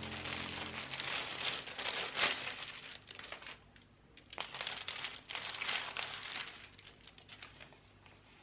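Clear plastic packaging of an embroidery kit crinkling as hands handle it and pull the hoop and papers out. It comes in bursts, busy for about the first three seconds, then again for about two seconds after a short lull, and fainter near the end.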